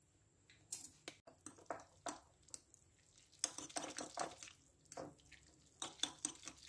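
Faint, irregular wet squelches of a fork stirring sauce-coated instant noodles in a ceramic bowl, with light clinks of the fork against the bowl.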